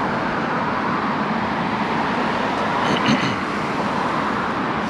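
Steady hiss of road traffic, with a few brief high-pitched chirps about three seconds in.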